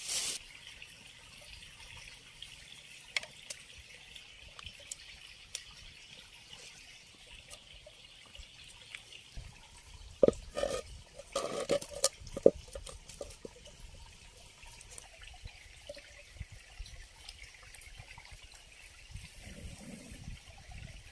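Water trickling steadily, with scattered clicks and a short run of louder knocks about halfway through.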